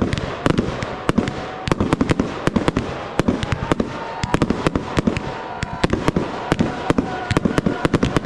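Fireworks display: aerial shells bursting in quick succession, an uneven volley of sharp bangs several a second over a continuous crackle.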